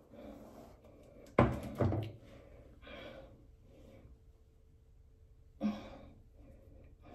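A person breathing hard and sighing while working on her hair with raised arms, with two loud sudden thumps about a second and a half in.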